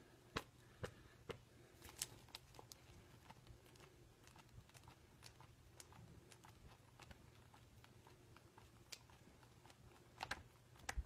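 Near silence: quiet room tone with faint, scattered light clicks and taps.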